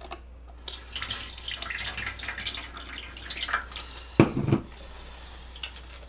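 Watery black paint wash poured from a bottle over a foam model in a metal pan, splashing and dripping. A brief loud knock a little past the middle.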